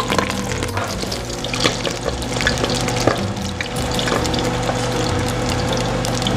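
Pork belly deep-frying in hot oil: a steady sizzle with scattered sharp pops and crackles, over background music.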